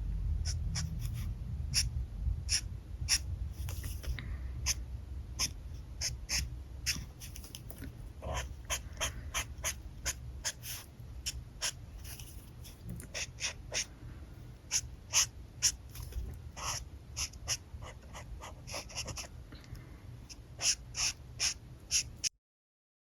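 Alcohol marker tips stroking and scratching on paper in short, quick, irregular strokes, sometimes several a second. The audio drops out completely for about a second near the end.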